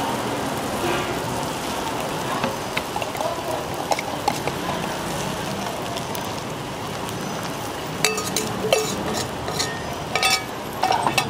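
Roti frying on a hot griddle with a steady sizzle, with a run of sharp metallic clinks in the last few seconds.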